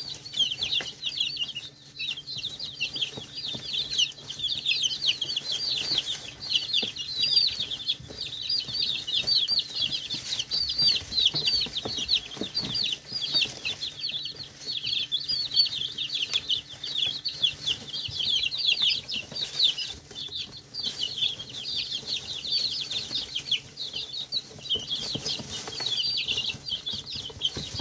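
A brood of young chickens peeping and cheeping nonstop, many short high calls overlapping as they feed together.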